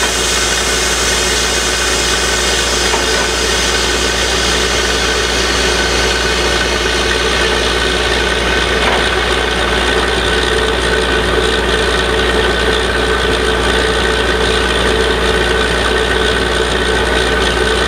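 Truck-mounted borewell drilling rig running steadily while drilling, its engine noise loud and unbroken.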